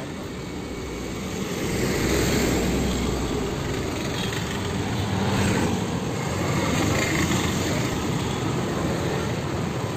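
Road traffic passing close by: engines and tyres of cars and motorcycles, the noise swelling and easing as vehicles go past.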